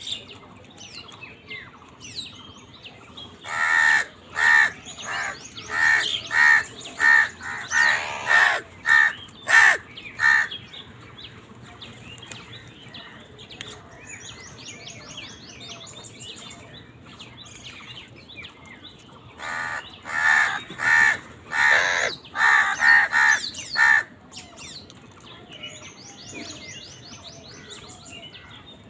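House crows cawing in two runs of rapid, repeated harsh caws, each lasting several seconds with about a ten-second pause between them. Faint high chirps of small birds come in between.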